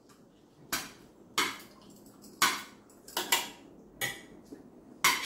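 Cutlery clinking and tapping against plates during a meal: about seven short, separate clinks, spaced roughly half a second to a second apart.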